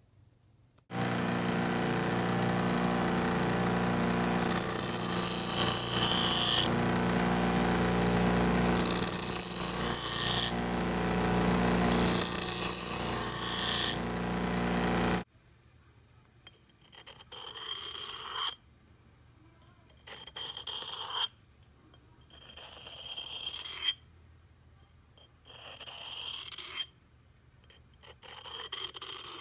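Bench grinder motor running steadily, with three passes of a steel knife blade pressed to the spinning wheel, each a loud grinding hiss. Then, after a break, the blade is drawn along a flat sharpening stone in about five slow rasping strokes, each a couple of seconds apart.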